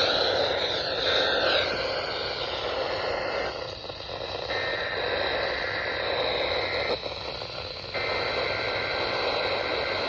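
Static hiss from a weather radio receiver tuned to a weak, noisy signal, with faint steady whistles that shift pitch and fade in and out a few times.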